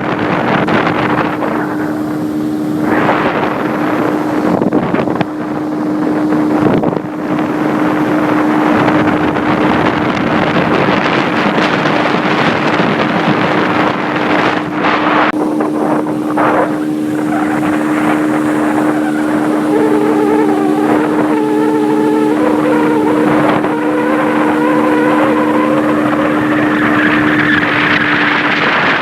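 Motorboat engine running at a steady pitch under wind and water rush on the microphone. In the second half a wavering higher tone joins in, and the steady engine hum drops away near the end.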